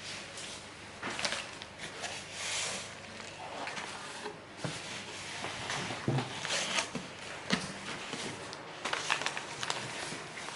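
Packaging being handled during an unboxing: irregular rustling swishes with a few light clicks and knocks.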